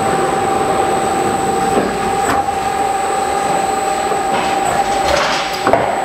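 Film-wrapping machine and its conveyor belt running, a steady mechanical noise with a constant whine. A few sharp clicks and knocks come about two seconds in and again near the end.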